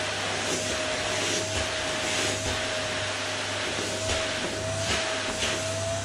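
Canister vacuum cleaner running steadily, its motor giving a constant high whine over the rush of suction, with several brief louder surges.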